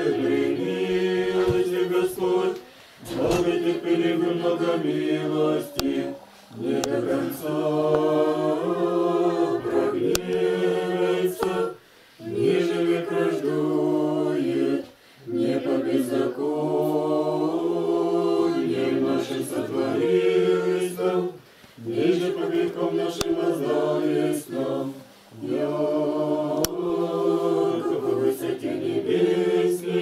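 Small group of men and women singing an Orthodox prayer chant unaccompanied, in held phrases of a few seconds each, separated by brief pauses for breath.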